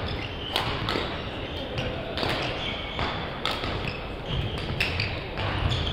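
Badminton rally: repeated sharp smacks of rackets striking the shuttlecock, several a second at times, with short squeaks of court shoes on the gym floor, echoing in a large sports hall.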